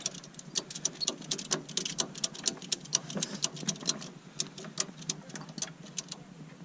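Ratchet tie-down strap being cranked tight on a bike loaded in a pickup bed: a quick, uneven run of sharp metal clicks, several a second, growing fainter after about four seconds.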